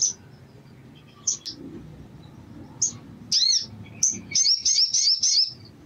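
Male olive-backed sunbird calling: scattered sharp, high chips, a loud arched double note about three and a half seconds in, then a quick run of about eight chirps that stops shortly before the end.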